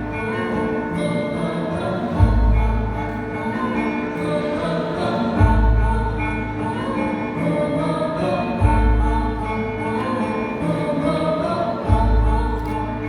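Javanese gamelan music: bronze metallophones ringing steady tones, with a deep low stroke about every three seconds.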